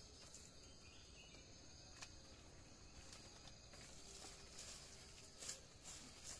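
Faint, steady chirring of insects, with a few soft rustles and clicks as folded banana leaves are stacked and handled.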